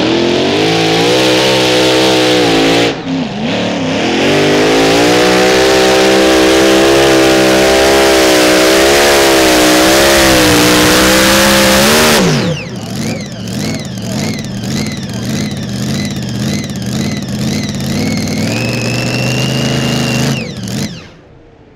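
Mini rod pulling tractor's supercharged engine at full throttle during a pull, rising in pitch at the start, dipping briefly about three seconds in, then held high until it drops off abruptly about twelve seconds in as the pull ends. It then runs lower and uneven, with a wavering whine, until it stops near the end.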